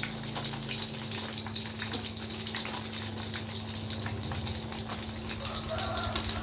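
Hot oil sizzling and crackling in a wok as filled lumpia-wrapper martabak parcels deep-fry, with a steady low hum underneath.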